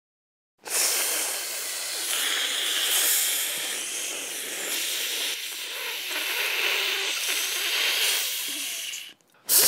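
A steady hissing noise that starts abruptly about a second in and cuts off shortly before the end.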